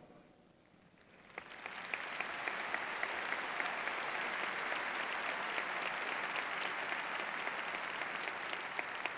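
A large audience applauding. The clapping rises in about a second and a half in, then holds steady.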